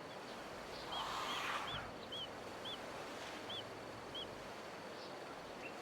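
A bird calling in the distance, repeating one short high note about twice a second, seven times in all. Under the first calls comes a soft brief wash of splashing water from elephants wading in the river.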